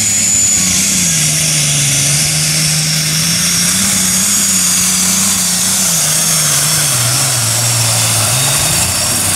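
Super stock pulling tractor's engine running flat out under load while it drags the sled, loud and steady. Its pitch sags and recovers, sinks lower in the last few seconds as the load builds, then rises sharply just before the end.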